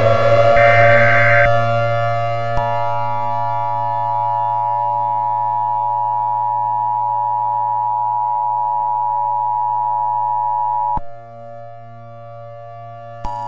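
Electronic siren-like alert tone that has just finished rising and levels off into steady held tones over a low hum, with a short high pulsing beep about a second in. About 11 s in it drops to a much quieter drone after a click, and a new steady tone cuts in just before the end.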